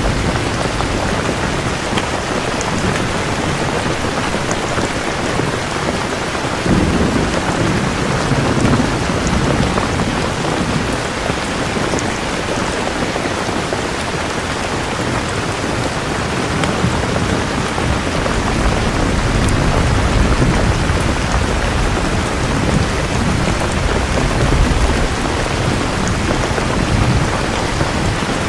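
Steady heavy rain falling, with low thunder rumbles: one about a quarter of the way in and longer ones through the second half.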